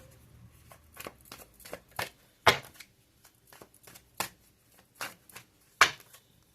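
Tarot cards being shuffled by hand: a run of irregular short snaps and clicks, the loudest about two and a half seconds in and near the end.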